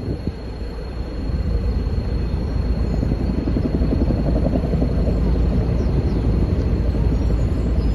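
A loud, steady low engine rumble, swelling a little about a second in.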